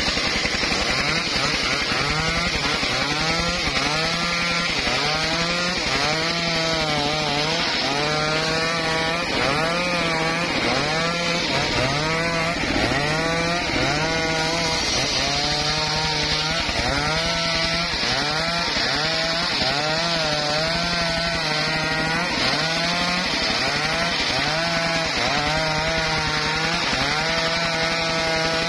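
Homemade circular saw running and cutting through wood, its pitch rising and falling about once a second.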